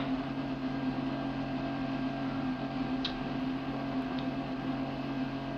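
Steady low hum and hiss of room tone on an old videotape recording, with a faint short high chirp about three seconds in.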